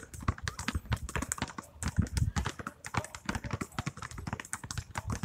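Several basketballs being dribbled at once on an asphalt court: many quick, overlapping bounces with no common beat.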